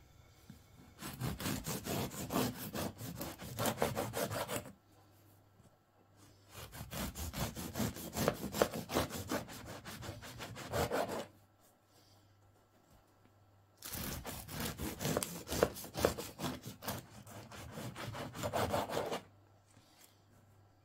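A long knife sawing back and forth through the crust of a freshly baked wheat loaf on a plastic cutting board, cutting off slices. There are three bouts of strokes, each lasting about four to five seconds, with short pauses between them.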